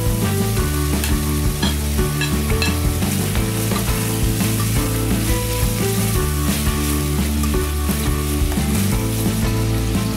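Bacon, onion and strips of ham and sausage sizzling as they fry in a stainless steel pot, with a spatula stirring them and scraping the pot.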